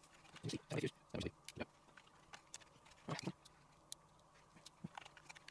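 Irregular light clicks and knocks of a printed circuit board and small black plastic instrument case being handled and fitted together, a few taps in the first second and a half and another cluster about three seconds in.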